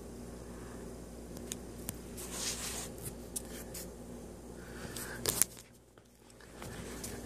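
Scattered light scratching and sharp clicks over a steady low hum, loudest as a quick cluster of clicks about five seconds in.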